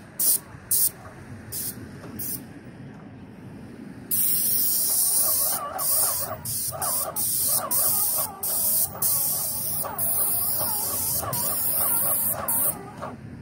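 Paint spray gun hissing as paint is sprayed onto roof tiles. It comes in short trigger bursts at first, then turns into a near-continuous spray from about four seconds in, broken by frequent brief pauses.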